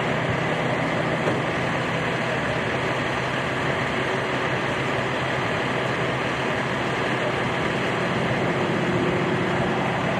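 Small propeller-driven aerobatic airplane's engine running as a steady, unbroken drone while the plane tumbles through its routine.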